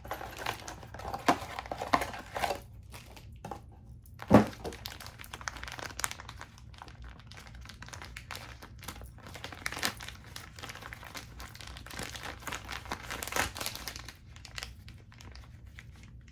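Blind-box toy packaging being opened by hand: plastic wrapper crinkling and tearing in irregular bursts, with one sharp knock about four seconds in.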